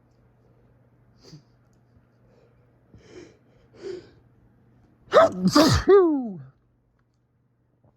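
A person sneezing from fall allergies. A few short catching breaths build up, then a loud sneeze comes about five seconds in, with two quick peaks and a voiced cry that falls in pitch.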